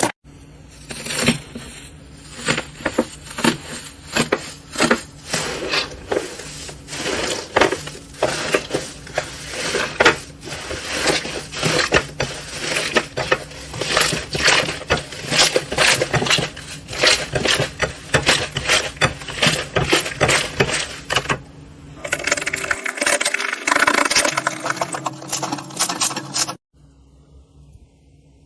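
Crunchy slime being squeezed and pressed by hand, giving a dense, rapid run of crackling and popping clicks. The sound drops away near the end.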